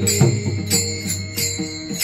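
Devotional bhajan music between sung lines: small hand cymbals clash on a steady beat over a sustained, held instrumental tone.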